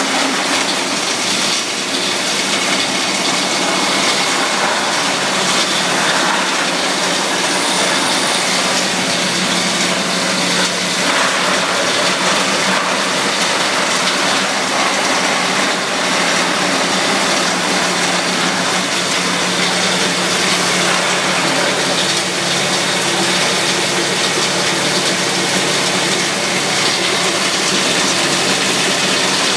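Plastic crusher (granulator) running steadily, grinding plastic pipes fed down its chute into granules: a continuous mechanical din with a constant low hum underneath.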